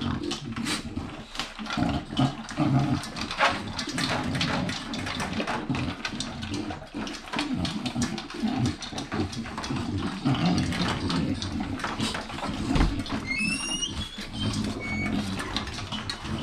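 Several American bully dogs eating greedily from metal bowls in their crates: wet chomping and snuffling with many quick crunches and clinks of the bowls. A brief high squeak comes about thirteen seconds in.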